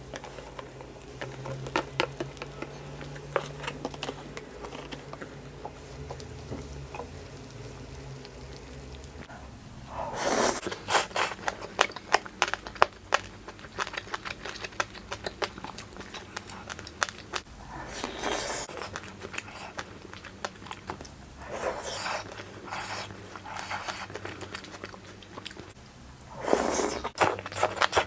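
Close-miked eating of hotpot food: chewing and crunching with frequent small clicks of utensils, broken by four louder breathy bursts of a second or two, about ten, eighteen, twenty-two and twenty-seven seconds in.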